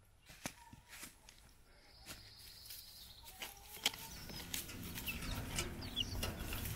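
Quiet chicken-yard ambience: scattered light clicks and a few short bird chirps, with a low rumble that grows louder toward the end.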